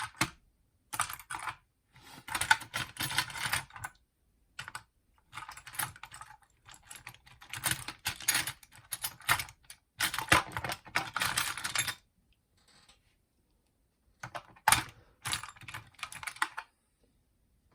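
Small metal hand tools clattering and rattling in bursts of quick clicks as they are rummaged through to find a hook tool.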